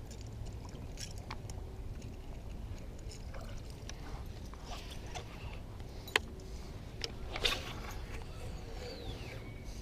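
Low steady rumble of wind and water at a small boat. Fishing tackle clicks sharply about six seconds in, then gives a short, louder swish about a second later as the lure is cast.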